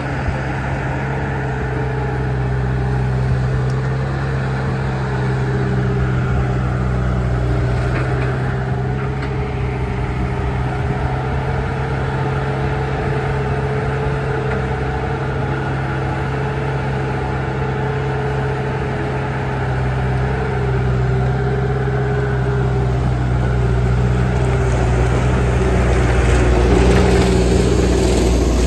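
Diesel engine of a Bobcat compact track loader running steadily under load as the machine pushes a small tractor across gravel. It grows somewhat louder near the end.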